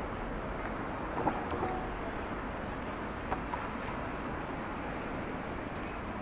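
Steady noise of car traffic on a city road, with a couple of brief clicks about one and three seconds in.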